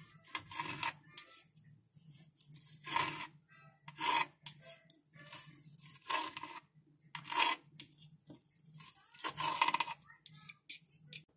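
Kitchen knife sawing through cooked chicken breast and scraping on a glass cutting surface: about eight rasping strokes, each under a second, at uneven intervals.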